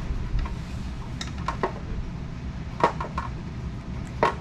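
Small metal parts and hand tools clinking and knocking while a scooter's fender hardware is fitted: a handful of separate sharp clinks, the loudest about three seconds in and another near the end.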